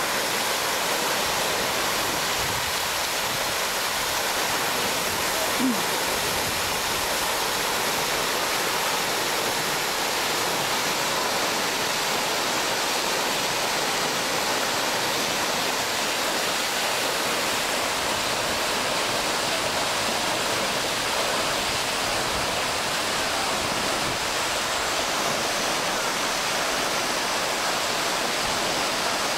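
Tall pond fountain's water jet falling back into the pond: steady, even splashing.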